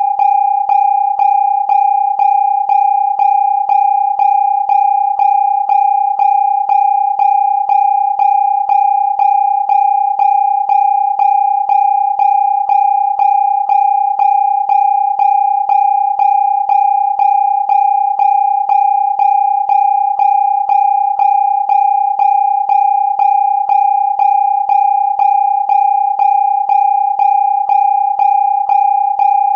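Electronic siren effect: a single steady, high-pitched tone that never changes pitch, pulsing in loudness about twice a second.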